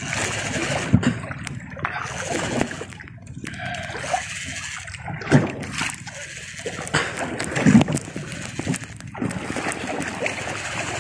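Choppy sea water splashing and slapping against a small outrigger boat, swelling and fading irregularly with scattered short knocks.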